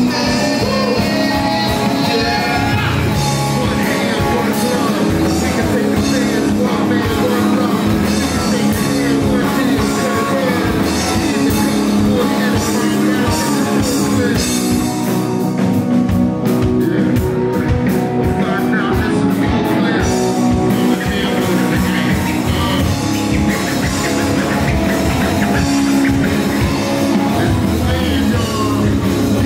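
A live rock band playing loudly and steadily: electric guitar and drum kit.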